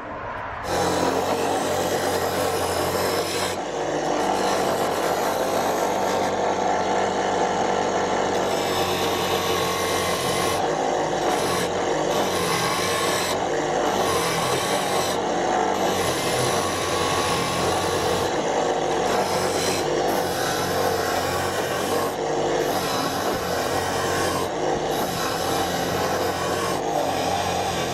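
Angle grinder running and working against wood, a steady grinding-rasping sound over the motor's hum, starting under a second in.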